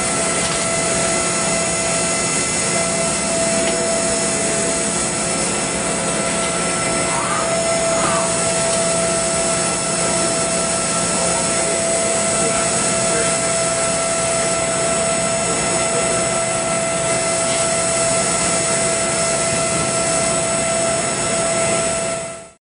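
High-speed CNC milling machine cutting hardened steel: a steady loud rush of cutting noise with a high, steady spindle whine. It cuts off suddenly near the end.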